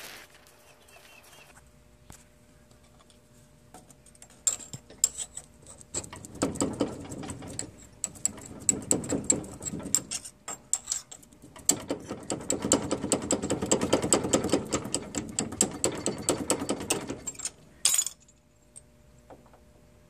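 Rapid metallic clicking and scraping in two long runs as a screwdriver works at the rusted brake caliper and brake disc of a John Deere STX30 lawn tractor, then a single sharp clank near the end.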